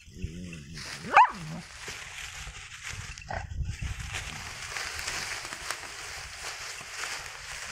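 Two dogs play-fighting: a short low growl at the start, then one loud, sharp yelp about a second in and a shorter yelp around three seconds in, over steady rustling of dry straw as they wrestle.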